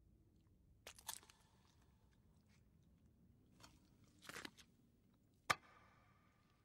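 A man biting and chewing food in short crunches, about a second in and again around four seconds in. About five and a half seconds in comes a single sharp click with a brief ringing after it; the rest is near silence.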